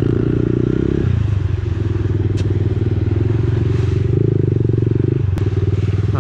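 Kawasaki pit bike engine running as the bike rides along. The throttle eases off about a second in, opens again near four seconds, and dips briefly a little after five seconds.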